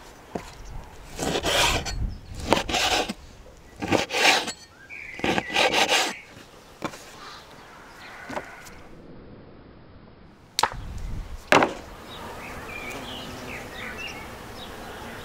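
Large knife cutting raw lamb and fat on a wooden board: a run of rasping slicing strokes with knocks of the blade on the wood. Later two sharp knocks, then faint bird chirps.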